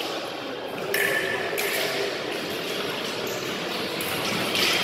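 Sports hall ambience during a fencing bout: a steady background hum of the hall with a few short scraping sounds, near one second in and again near the end.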